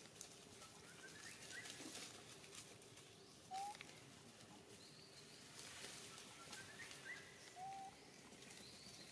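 Faint outdoor ambience with short rising whistled animal calls: a quick glide upward, then a brief higher-pitched note, the pair heard twice.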